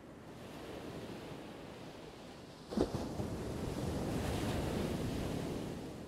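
Ocean surf washing in: two swells of wave noise, the second louder, each rising and then fading. A single sharp knock sounds about halfway through.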